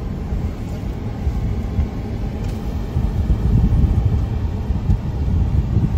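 Low, steady vehicle rumble that grows louder about halfway through, most likely vehicles moving on and off the ro-pax ferry at the jetty.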